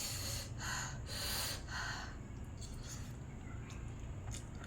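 A woman breathing hard and noisily through her mouth, four quick breaths in the first two seconds, then quieter. It is a reaction to the burning heat of very spicy Buldak noodles.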